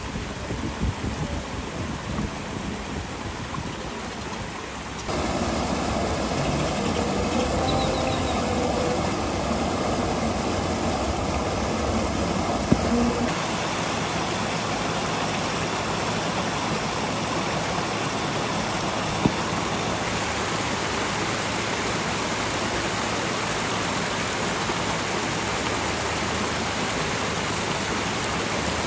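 Steady rush of running water. It grows louder and fuller about five seconds in and shifts in tone again partway through, with two brief sharp ticks.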